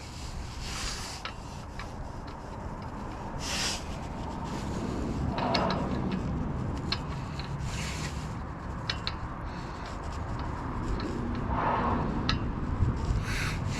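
Metal rubbing and scraping with scattered sharp clicks and a few short swells, as a thread die is worked onto an axle's damaged threads. The die is struggling to grab the threads.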